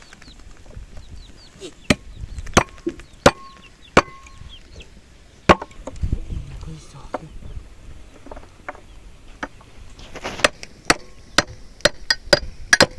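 Firewood being chopped and split with a metal tool in repeated sharp blows, several with a short ringing note. About four blows come under a second apart, then a single one, then a quicker string of blows near the end.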